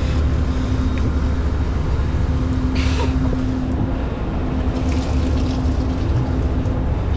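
Steady low drone of a 92-foot Viking sportfishing yacht's machinery running, with a constant humming tone over it. A brief hiss comes about three seconds in.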